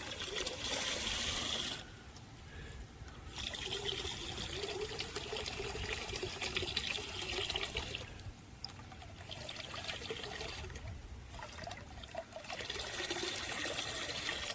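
Water from a garden hose running into a bucket as it fills, breaking off briefly three times.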